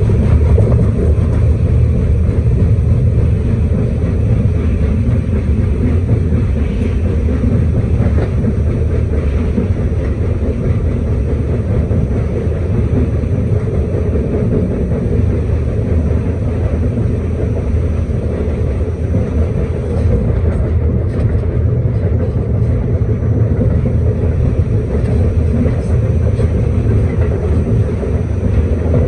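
Staten Island Railway R44 subway car running along the line, heard from aboard: a steady, loud rumble of wheels on the rails and the car's running gear.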